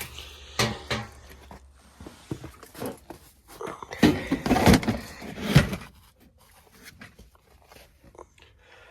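A series of knocks and clattering bangs from equipment being handled, with two sharp knocks about half a second apart near the start and a louder run of clatter about four to six seconds in, then a few faint ticks.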